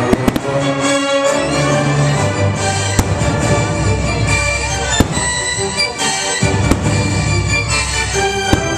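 Fireworks shells bursting over an orchestral show soundtrack: two sharp bangs close together at the start, then single bangs about every two seconds.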